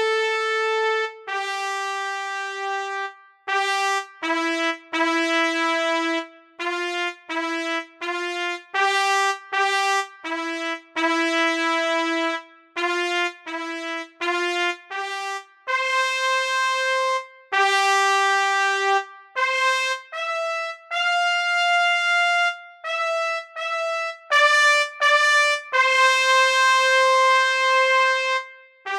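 Music: a single instrument playing a melody of separate held notes, one at a time, each lasting about half a second to a second and a half, with short breaks between them.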